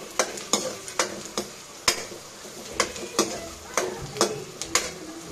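A steel spoon stirring and scraping in an aluminium kadhai, knocking against the pan about a dozen times at an uneven pace, over the steady sizzle of onion, green chilli, curry leaves and grated coconut frying in oil.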